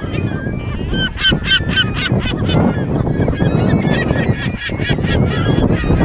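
A flock of gulls calling: quick runs of short, repeated calls, about four or five a second, in two bouts with a brief lull between. A steady low rumble sits underneath.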